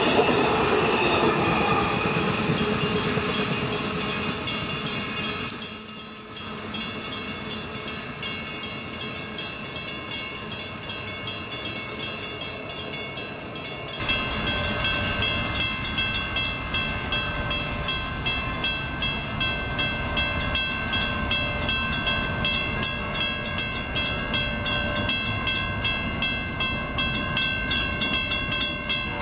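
Amtrak Superliner passenger cars rolling past with the clickety-clack of wheels, fading away as the train leaves. About halfway there is a sudden change to a steady, rapid ringing with several held tones.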